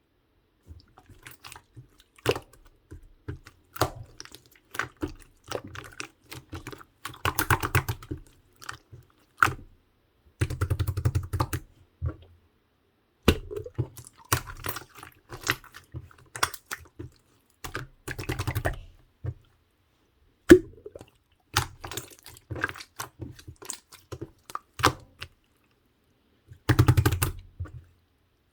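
Close-miked wet squishing with sticky clicks and small pops, in irregular bursts with short pauses between them, like a soft wet mass being squeezed and poked.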